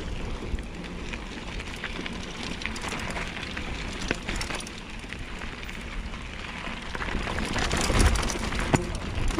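Mountain bike rolling fast down a dry dirt trail: tyres crunching and crackling over loose dirt and small stones, with the bike rattling and wind noise, growing louder over the last couple of seconds.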